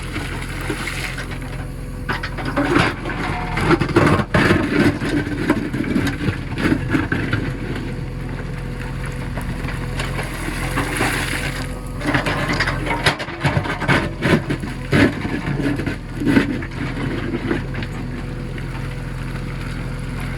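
Backhoe loader's diesel engine running steadily, with bouts of irregular clattering from about two seconds in and again around twelve seconds in.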